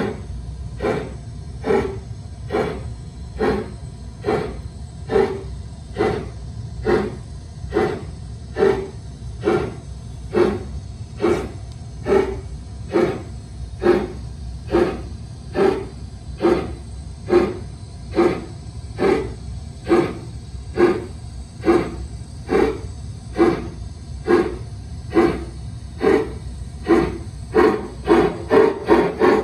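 LGB G-scale model steam locomotive chuffing in a steady rhythm, a little under two chuffs a second, over a low steady rumble of the running train on the track. The chuffs come a little faster near the end.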